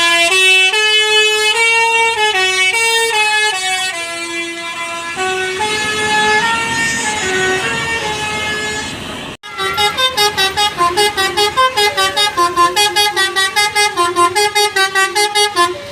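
Telolet basuri musical bus horn playing melodies: first a tune of held notes stepping up and down, then, after a sudden break about nine seconds in, a fast tune of short staccato notes, about five a second.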